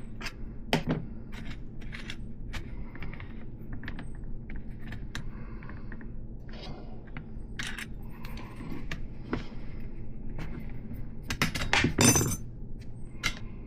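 Scattered metallic clicks and clinks from a wrench working a nut and loose spacers on a BMX hub axle, with a louder clatter of metal with a brief ringing near the end.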